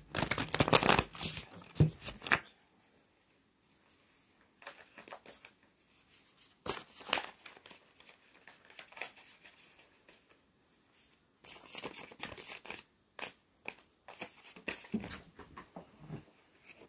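Tarot cards from a Light Seer's Tarot deck being shuffled and handled: a loud burst of shuffling in the first two seconds, then softer, irregular bouts of shuffling as the cards are drawn.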